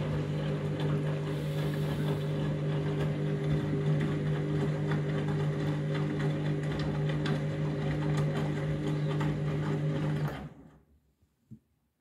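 Front-loading washing machine turning an overloaded, wet load in its drum: a steady motor hum with water and laundry splashing inside. It stops suddenly about ten seconds in.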